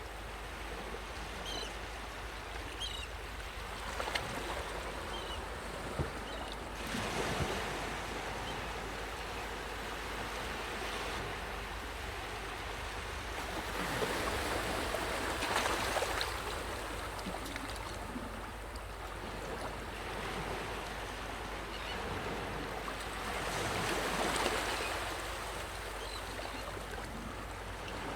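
Sea waves washing onto a sandy beach: a steady hiss of surf that swells louder three times, a few seconds in, around the middle and near the end, as waves break and run up the sand.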